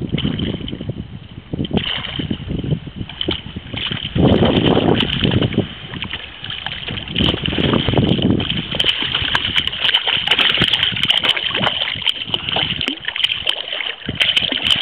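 Water splashing as a hooked blue runner thrashes at the surface of shallow water. The splashing is heaviest in bursts about four and seven seconds in, followed by lighter splashing with scattered sharp clicks.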